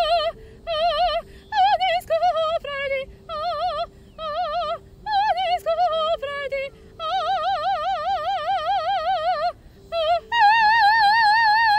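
Female soprano singing an Italian song in operatic style with a wide, even vibrato. Short phrases lead to a long held note, and near the end she rises to a sustained high note.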